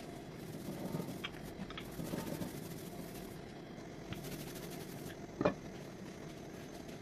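Rolling pin rolling out stiff dough on a countertop, a low rumble in a few strokes with small clicks. A single sharp knock sounds about five and a half seconds in, as the pin is set down.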